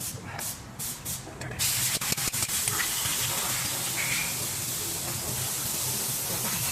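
A few clicks, then about a second and a half in a steady hiss starts and keeps going, with scattered clicks through it.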